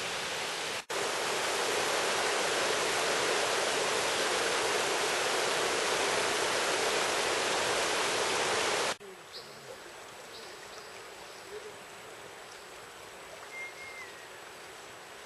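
Steady rush of a shallow, rocky river, which cuts off abruptly about nine seconds in to a much quieter outdoor ambience with a few faint bird chirps.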